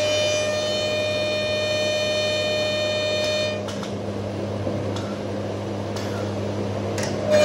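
Automatic wood lathe running, with the steady whine of its spinning cutter drum over a low motor hum. The whine stops about three and a half seconds in, leaving the hum and the lathe's noise.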